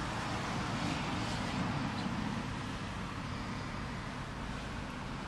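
2013 Lexus GS350's 3.5-litre V6 idling, a steady low hum.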